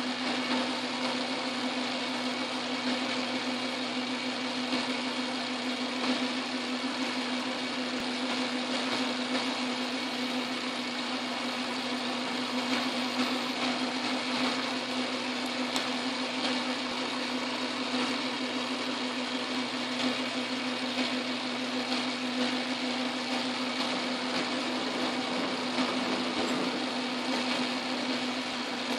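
Metal lathe running steadily: an even motor hum with the whir of the belt drive and spindle turning a steel workpiece, while a bit in the tailstock drill chuck is fed into it.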